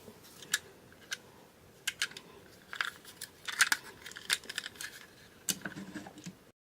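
Light clicks and taps of small plastic toys being handled and set down, scattered unevenly, a few at a time, busiest in the second half.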